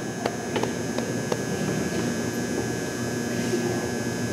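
Footsteps: five light clicks within the first second and a half, over a low murmur of voices and a steady hum in the gym.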